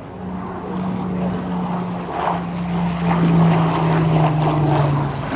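Rolls-Royce Merlin V12 engine of a World War II fighter flying past, a steady propeller drone whose pitch slowly falls as it passes.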